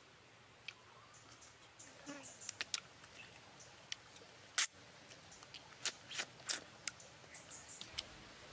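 Eating sounds close up: a crisp piece of cooked fish being bitten and chewed, a run of sharp crunches and mouth smacks that is loudest about halfway through.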